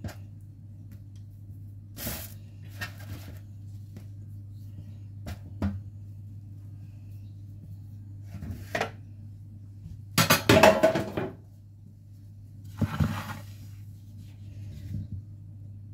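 Kitchenware being handled as baked börek pastries are moved from a metal baking tray to a wooden plate: scattered light knocks and clinks, with a louder clatter about ten seconds in. A steady low hum runs underneath.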